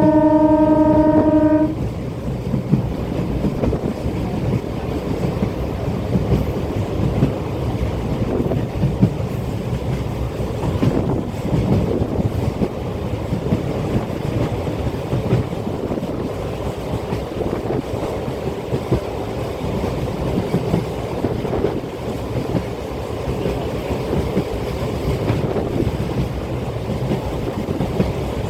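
Local passenger train's horn sounding one steady note that cuts off about two seconds in, then the train's steady running rumble with wheel clatter on the rails.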